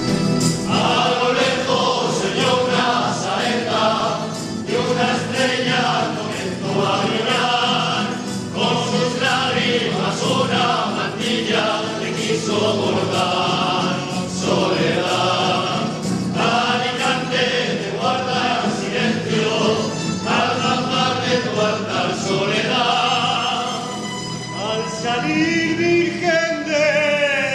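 A Spanish tuna, a group of men singing together, accompanied by strummed guitars and bandurrias, in a serenade (ronda) to the Virgin.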